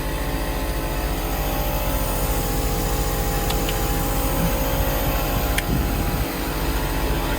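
A motor running with a steady, even drone, with a few faint clicks about halfway through.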